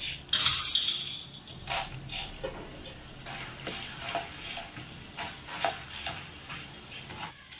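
A fresh batch of dried chickpeas deep-frying in hot oil in a kadai, sizzling, loudest in about the first second. It is stirred with a metal slotted spoon, which scrapes and clicks against the pan. The sizzle drops off abruptly shortly before the end.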